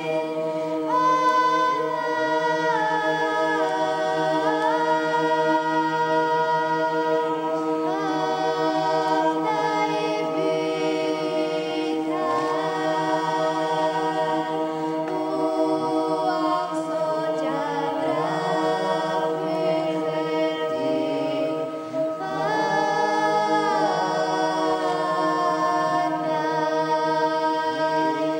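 A young girl's solo voice singing an ornamented Orthodox chant melody a cappella, over a steady drone of lower voices holding the same notes throughout.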